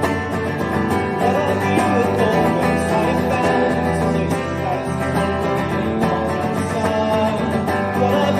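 Strummed acoustic guitar playing a song, continuous and steady.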